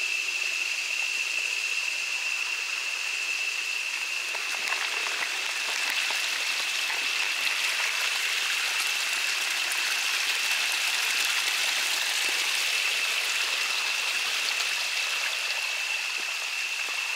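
Small rainforest stream trickling and splashing over rocks, a steady rush of water. A steady high-pitched drone runs over it throughout.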